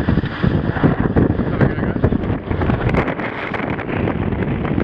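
Strong wind buffeting the microphone aboard a Dragon keelboat sailing in far too much wind, a loud, steady low rumble of wind noise.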